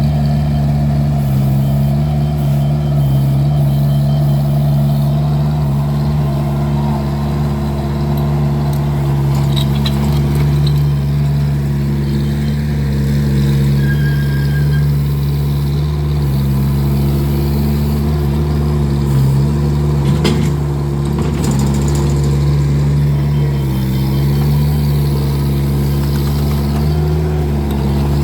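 Vermeer mini skid steer's engine running steadily at an even pitch, with a few brief knocks about ten and twenty seconds in.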